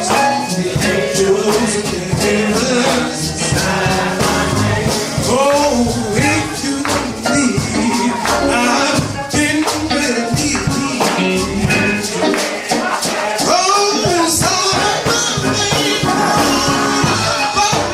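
Upbeat gospel song: singing over a band, with hand percussion keeping a steady beat.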